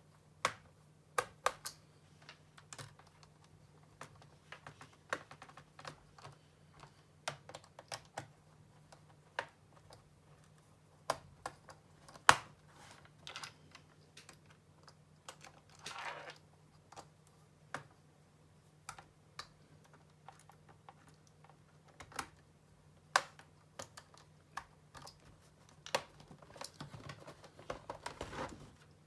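Irregular light clicks and taps on a laptop's plastic case and keys, a few a second at most, over a faint steady low hum.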